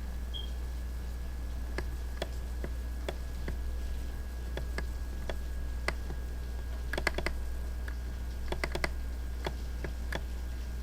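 Scattered sharp clicks of a computer keyboard or mouse being worked, a few coming in quick clusters about seven and nine seconds in, over a steady low hum.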